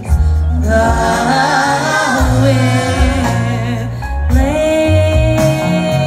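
Neo-soul band and orchestra playing live, heard from the audience. A singer's line bends and wavers about a second in, then a long held note starts a little after four seconds, over a pulsing bass.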